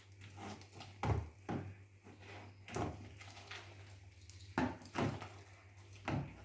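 Hands kneading bead-filled slime in a bowl: about six short, soft knocks and squelches at uneven intervals, over a faint steady low hum.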